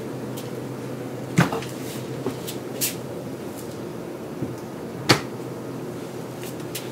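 Refrigerator door being handled and then shut: a knock about a second and a half in and a few small clicks, then a sharp thud as the door closes about five seconds in, over a steady low hum.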